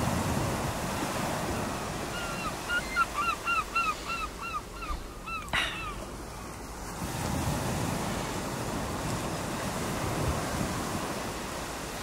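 Surf washing on a beach with wind, swelling at the start and again about seven seconds in. From about two to five seconds in, a quick run of about a dozen short chirping calls, then one sharp call just after the middle.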